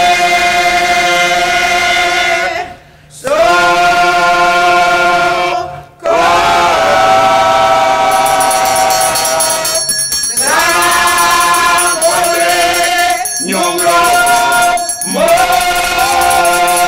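A small group of a man's and several women's voices singing together in long, held phrases, broken by brief pauses for breath.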